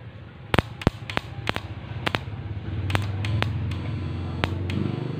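A run of sharp clicks and snaps as alligator clips and leads are connected to a homemade electrofishing inverter. From about halfway through, a low steady hum starts as the inverter's transformer runs, and it grows a little louder near the end.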